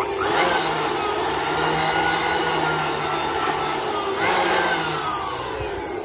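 Corded electric blower switched on and running with a steady whine as it blows dust off a gas heater's plastic mesh filter. About four seconds in it briefly revs up, then it winds down with a falling whine near the end.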